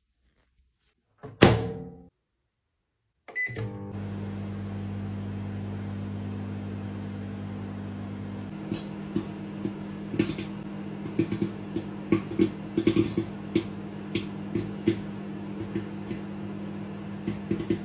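A loud knock, then a short beep, after which the microwave oven starts running with a steady electrical hum. About nine seconds in, popcorn kernels start popping inside it, the pops coming more often after a few seconds.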